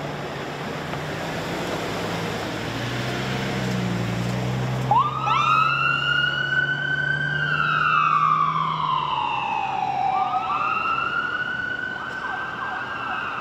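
Falck ambulance pulling away with its engine running. About five seconds in, its siren starts with a few quick chirps and goes into a wail: a rising tone, a slow fall, then rising again and holding.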